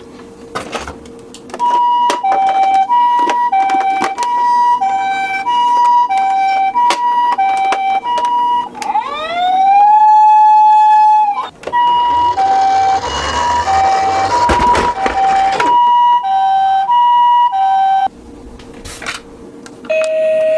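Toy ambulance minicar's electronic siren sounding the Japanese two-tone hi-lo pattern, high and low notes alternating about once a second. Midway it switches to a rising wail held for a couple of seconds, then goes back to the two-tone. A rushing noise runs under it for a few seconds after the switch, and a few clicks come near the start and end.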